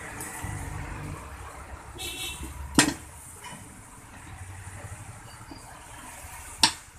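Steel tyre lever scraping and clanking against a steel wheel rim as the tyre bead is levered over the rim, with two sharp metallic knocks about four seconds apart. A low rumble runs underneath.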